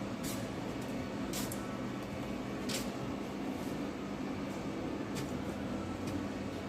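Welding on a steel vehicle chassis frame: a steady crackling hiss over a constant hum, with a few short sharp ticks.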